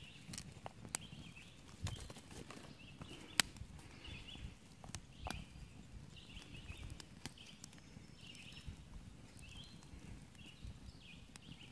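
Dry sticks knocking and snapping as they are laid onto a small campfire of twigs, with sharp clicks scattered throughout, the loudest about three and a half seconds in. A bird chirps over it in short calls, repeated every second or so.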